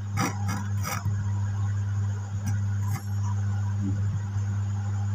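Steady low mains hum from a powered-up amplifier. A few sharp clicks and knocks come in the first second as the USB module is handled.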